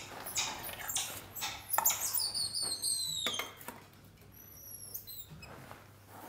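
Emperor tamarins giving high, thin whistled calls: a long call falling slowly in pitch about two seconds in and shorter ones near five seconds, over light rustling and clicks.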